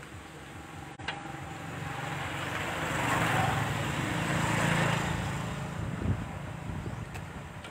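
Oil sizzling in a wok as battered banana fritters deep-fry. A louder rushing noise with a low hum swells up in the middle and fades away.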